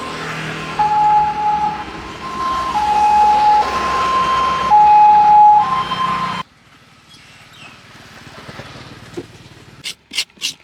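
A two-tone siren-like electronic tone switching back and forth between a lower and a higher pitch every second or so, over background noise. It cuts off abruptly about six seconds in, leaving quieter background sound.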